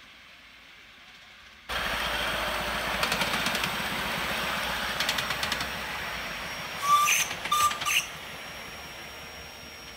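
5-inch gauge live steam model locomotive running past close by: a steady rush of steam and running gear, which comes in suddenly a couple of seconds in, with two bursts of rapid clicking. Three short high chirps stand out as the loudest sounds near the end, before it fades as the engine moves away.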